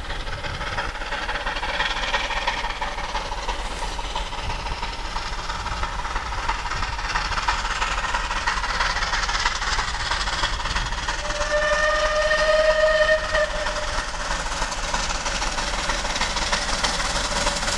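Steam locomotive 34067 Tangmere, a Bulleid Battle of Britain class Pacific, approaching with its train, its working growing steadily louder as it nears. About halfway through it sounds its steam whistle, one blast of about two seconds.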